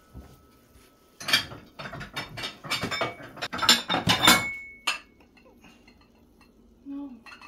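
Metal kitchenware clattering and clinking, pots, pans and utensils knocked against each other. It starts about a second in and stops near the five-second mark, with one short metallic ring near the end.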